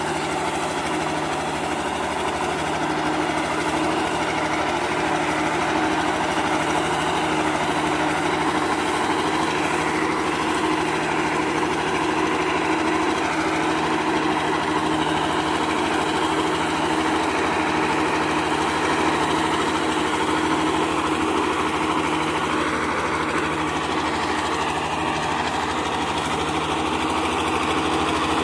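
Ursus 1201 tractor's six-cylinder diesel engine running steadily as its front loader pushes a pile of hay.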